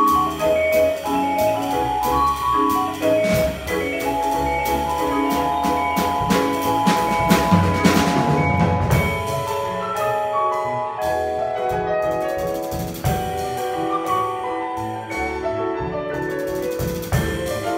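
A vibraphone plays ringing, sustained mallet notes and chords with a small band: a drum kit with cymbals and an upright double bass. Cymbal strokes are busy through the first half and thin out after about halfway, leaving the vibraphone's ringing tones more exposed.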